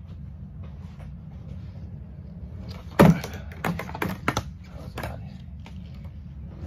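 Skateboard hitting a wooden ledge and the concrete floor during a nose plant: one loud clack about three seconds in, then several lighter clacks of the board and wheels over the next two seconds. A steady low hum runs underneath.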